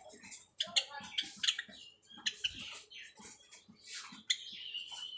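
Java sparrows chirping and calling: a quick run of short, high chirps, with one longer, steadier note near the end.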